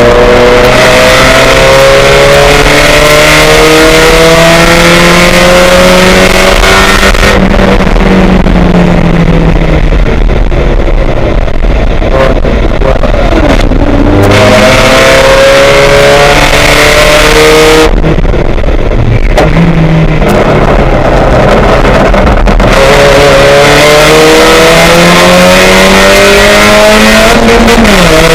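Loud race car engine accelerating hard, its pitch climbing steadily, easing off twice for a few seconds before pulling up again, with a quick gearshift dip near the end.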